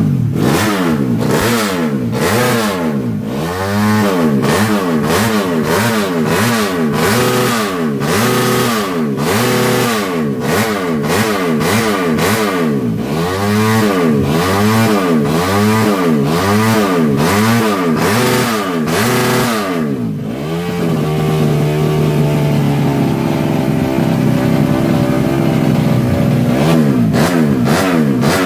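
Single-cylinder four-stroke engine of a Yamaha Jupiter Z (5TP) moped, tuned up to 130cc for racing, free-revved in quick throttle blips, the revs rising and falling about once a second. About twenty seconds in it settles to a steadier, higher hold for several seconds, then takes a few more quick blips near the end.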